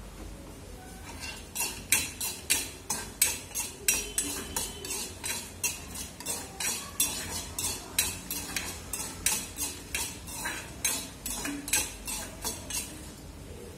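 Steel ladle scraping and knocking against a small steel kadai, two to three strokes a second, as coriander seeds and dried red chillies are stirred and roasted in it. The strokes start about a second and a half in and stop near the end.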